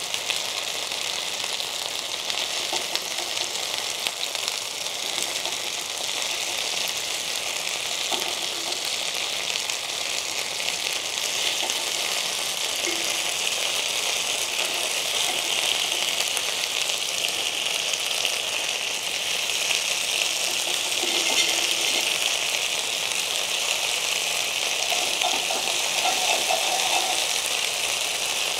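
Marinated chicken pieces sizzling steadily in hot oil in a cast-iron skillet, grilling over low heat, with a few light clinks as tongs turn the pieces.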